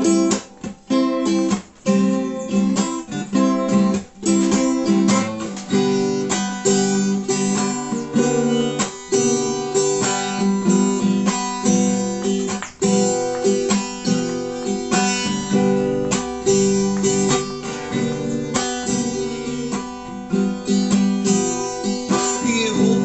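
Acoustic guitar playing an instrumental passage, plucked and strummed chords in a steady rhythm.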